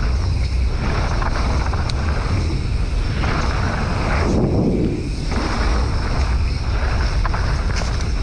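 Wind buffeting the camera microphone on a mountain bike riding fast down dirt singletrack, with the tyres rolling over the dirt. A steady low rumble with rushing noise that swells and eases every second or so.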